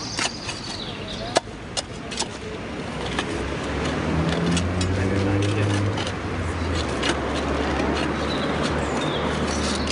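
A spade digging into gravel: scattered clicks and scrapes. From about three seconds in, a low engine hum, like a vehicle running, grows louder and holds.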